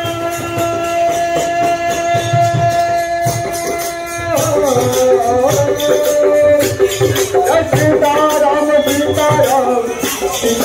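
Devotional music with singing: one long held note that glides down about four seconds in, then a moving melody, over a steady drum beat and jingling percussion.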